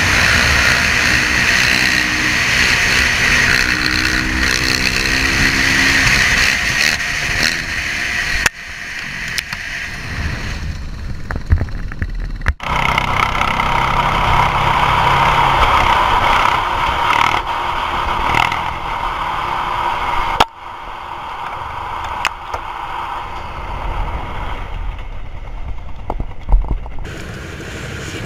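Motorcycle engine running and revving at speed, with heavy wind rush on a helmet-mounted camera. The sound changes abruptly three times, and a few sharp knocks stand out, the loudest near the end.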